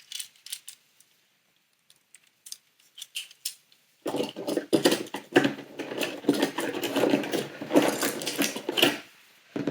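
Faint clicks and taps, then from about four seconds in some five seconds of dense crinkling and clicking as a small toy car is unpacked from its advent calendar compartment and packaging.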